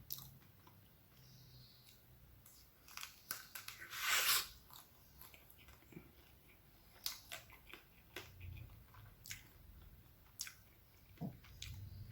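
Close-up eating sounds: biting and chewing a crisp wafer ice cream sandwich with a crispy chocolate layer, with scattered crackles and one louder crunch about four seconds in.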